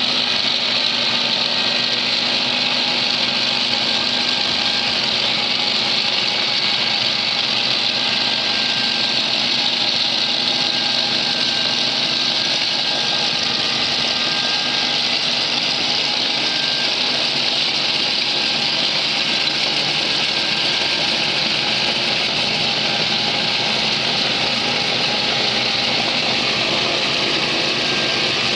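Interdrain 1515 HT tracked chain trencher at work: its diesel engine runs steadily under load while the digging chain cuts through sandy soil. The noise is even and unbroken, a hiss with a constant engine hum beneath it.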